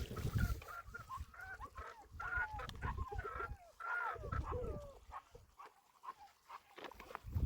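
Hens clucking: a run of short calls that bend in pitch, thickest in the first four or five seconds, then fading out.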